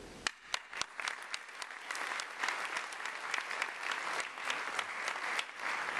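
Audience applauding: a few scattered claps at first, quickly swelling into dense, steady applause.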